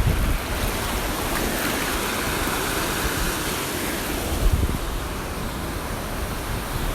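Ocean surf washing, with wind buffeting the microphone.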